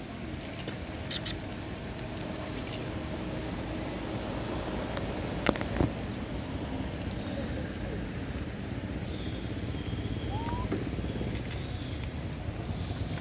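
Steady rain falling, with two sharp taps about a second in and another near the middle, and a short rising squeak late on.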